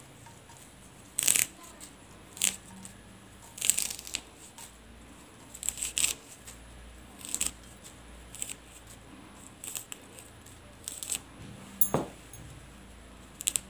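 Drumstick (moringa) leaves being stripped off their stems by hand: short dry rustles, about one a second.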